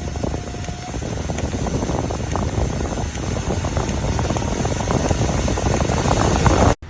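Waist-mounted portable fan running at high speed: a steady high whine over heavy rushing air that buffets the microphone with rumble and crackle, cutting off abruptly near the end.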